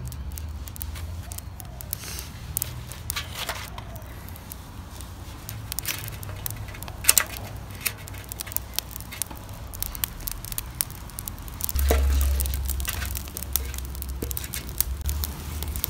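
Dry twig kindling catching fire and crackling, with many sharp snaps scattered irregularly. A low rumble comes in near the end.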